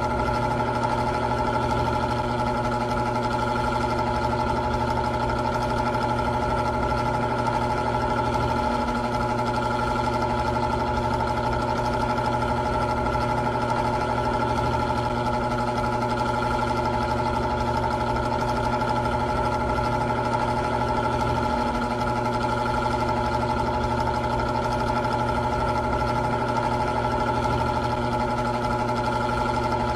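Old electric fan running at a steady speed: a constant motor hum and whine over a rush of air.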